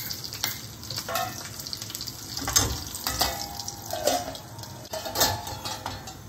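Mustard seeds starting to pop in hot sesame oil in a steel kadai: scattered sharp pops over a low sizzle. About three seconds in, a steel lid clanks onto the pan, and the popping goes on under it.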